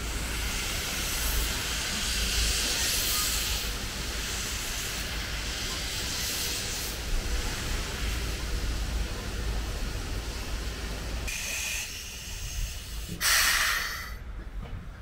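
JNR Class 8620 steam locomotive No. 8630 letting off steam: a loud hiss surges over the first few seconds and then eases, with wind rumbling on the microphone. Near the end comes a shorter, louder burst of hiss.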